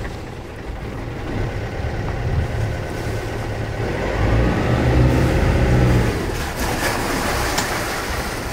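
Inboard diesel engine of a 55-foot sailing yacht running while motoring through a marina. The throttle is opened and the engine gets louder for a couple of seconds from about four seconds in, then eases back.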